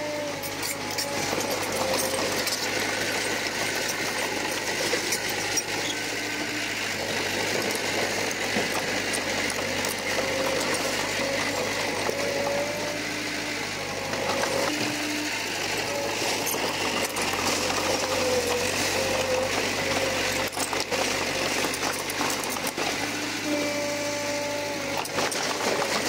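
Komatsu D21P crawler bulldozer working: its diesel engine runs steadily under a rhythmic mechanical clatter with scattered clicks and knocks. Brief whining tones come and go throughout.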